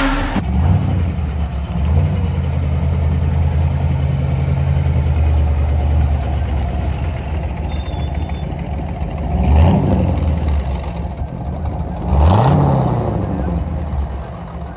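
C3 Chevrolet Corvette's V8 running at low speed, with two short rising revs in the second half as the car pulls away.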